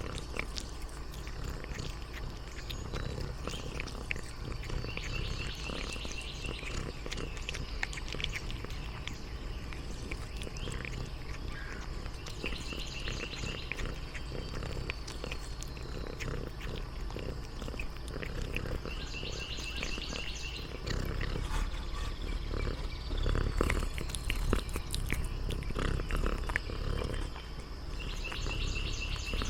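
Domestic cat eating a snack close to the microphone, with many small chewing clicks and purring. Outdoor background with a short high chirping call that repeats about every seven seconds, and a low rumble that grows louder after about twenty seconds.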